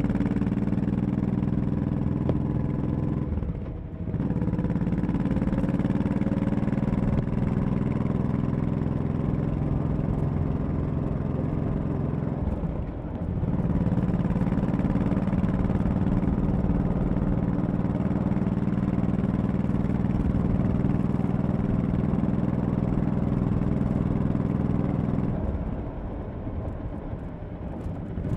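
Honda Shadow 1100's V-twin engine running steadily under way. The engine note dips briefly about four seconds in and again about thirteen seconds in, then eases off for a couple of seconds near the end.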